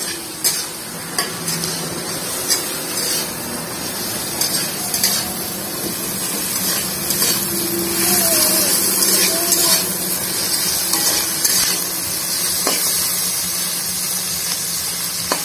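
Sliced onions and garlic frying in oil in a large metal kadai with a steady sizzle, while a metal spatula stirs them and scrapes and knocks against the pan every second or so, browning them for a curry base.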